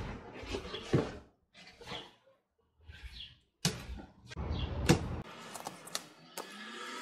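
Rhubarb stalks being pulled and snapped off the plant, with its large leaves rustling and brushing. A few sharp cracks stand out: about a second in, and twice near the middle.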